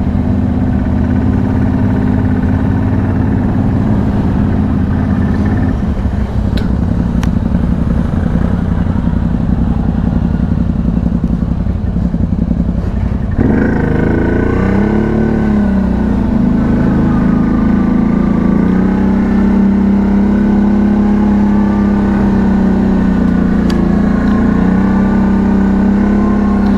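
ATV engine running while riding, a steady drone that changes abruptly about halfway through to a higher note which dips and rises with the throttle.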